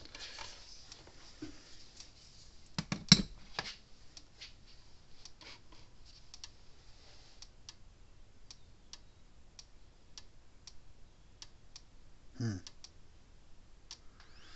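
Gallagher M400 plug-in electric fence energizer pulsing, with a sharp click at each pulse a little more than once a second: the unit is firing and working. A few louder knocks come about three seconds in.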